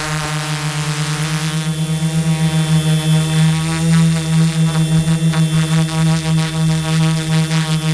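Tarot Iron Man 650 drone's Turnigy Multistar brushless motors and propellers buzzing steadily in flight, heard from the onboard camera, with a fast pulsing beat in the level as the rotors run at slightly different speeds.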